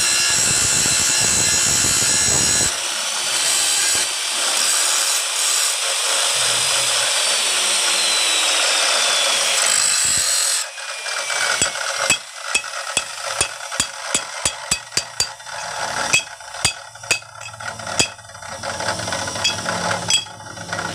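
Electric abrasive chop saw cutting through a thin steel pipe, then spinning on with a high whine that falls slowly in pitch. It stops abruptly about ten seconds in. After that comes a string of sharp metallic clicks and knocks as the cut pipe pieces are handled and tapped together.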